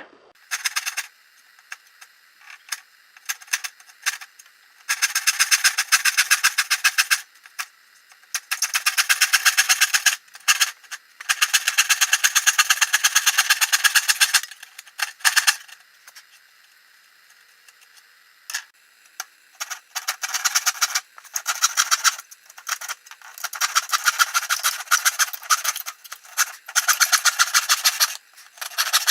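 Wood being worked with a fast-stroking cutting tool, in bursts of one to three seconds with short pauses between them.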